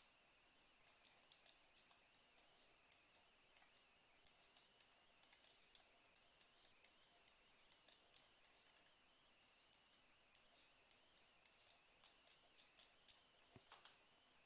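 Near silence with faint computer mouse clicks, a few each second and unevenly spaced, as the 3D view is turned and zoomed; a soft knock comes near the end.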